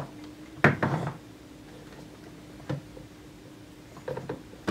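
Handling knocks and clicks as a multimeter's test probes and an 18650 lithium-ion cell are moved against the meter and a wooden tabletop: the loudest knock about half a second in, a lighter one midway and a few small taps near the end, over a faint steady hum.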